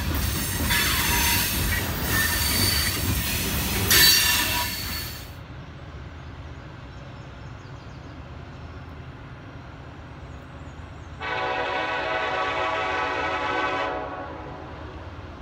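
Freight boxcars rolling past close by, wheels squealing with high steady tones, until it cuts off about five seconds in. About eleven seconds in, a locomotive horn sounds one blast of about three seconds from a train not yet in sight.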